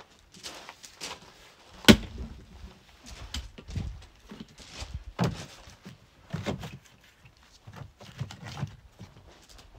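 Cut logs being handled: one sharp wooden knock about two seconds in, then a run of duller thuds and knocks roughly every second.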